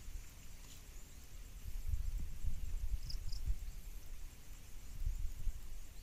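Outdoor ambience: irregular low rumbling on the microphone, with a faint high hiss and two short high chirps close together about three seconds in.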